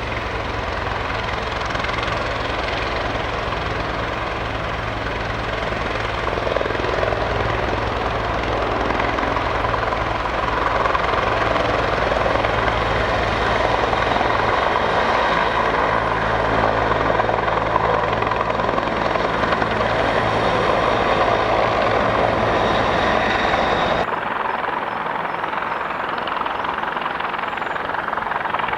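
Transport helicopter in flight: a steady, fast chop of rotor blades under the whine and rush of its engines. About 24 s in the sound changes abruptly, the low thudding of the blades dropping away.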